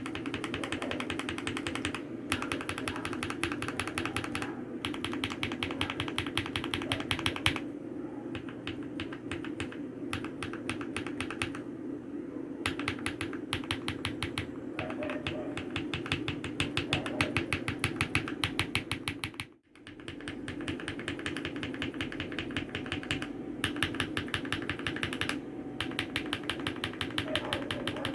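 Fast typing on a mechanical keyboard (RK G68 with Krytox 205g0-lubed Akko CS switches), a steady stream of keystroke clacks. The sound changes between sections as different switches are typed on. It cuts out briefly about two-thirds of the way through.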